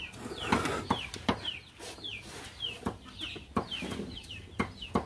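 Chicks peeping: short falling chirps, two to three a second. Occasional knocks and cloth rustling from handling come through close by.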